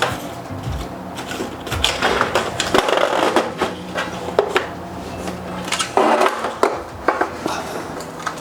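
Handling noises: rustling packaging and a run of light knocks and clicks as parts are moved about.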